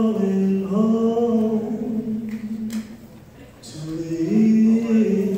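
A man singing a slow gospel song solo into a microphone, unaccompanied, holding long notes in two phrases with a short pause between them.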